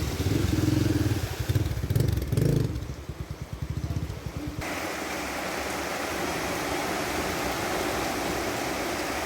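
A motorcycle engine running for the first few seconds, then from about four and a half seconds in a steady rush of floodwater.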